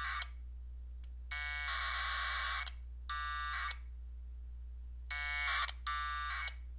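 1200-baud AX.25 packet radio data bursts: warbling two-tone AFSK chirps sent and answered as the station connects to a LinBPQ node and the node replies with its welcome message. One burst ends right at the start, then four more follow, each well under two seconds. A low steady hum lies underneath.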